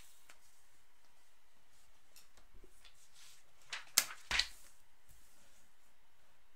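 Magazine pages handled on a wooden tabletop: faint paper shuffling, then two sharp taps close together about four seconds in as a page is set down on the table.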